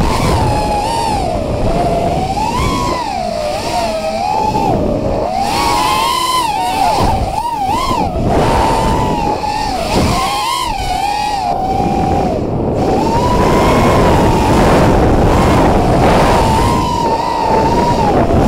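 FPV racing quadcopter's brushless motors and propellers whining, the pitch rising and falling constantly with throttle, heard through the onboard camera's microphone over heavy wind rush.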